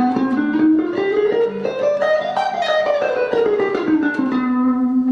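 Clean-toned electric guitar playing a harmonic minor scale slowly in single picked notes, climbing note by note and back down, then holding the low starting note for the last second.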